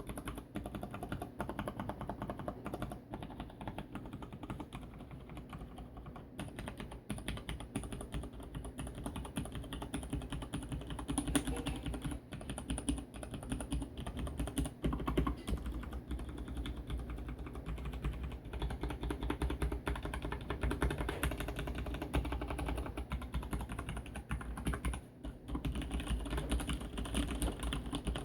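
Leopold FC750R mechanical keyboard with Cherry MX Brown tactile switches being typed on rapidly and continuously, a dense run of key clacks with a short pause about three-quarters of the way through. The desk underneath adds a hollow, booming resonance to each keystroke.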